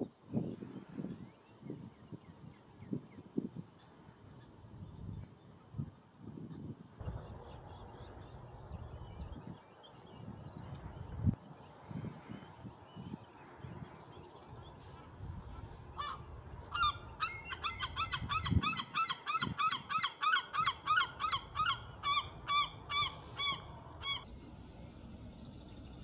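Osprey calling: a rapid run of short, sharp, pitched chirps, several a second, for about seven seconds in the latter part, cut off suddenly. A thin steady high-pitched tone runs underneath, with occasional low thumps.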